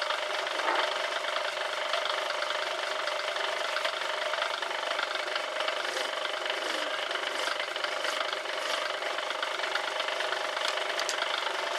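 Small metal lathe running steadily, spinning a newly threaded steel screw. About halfway through, a hand file is drawn against the turning end in several faint strokes to round it off.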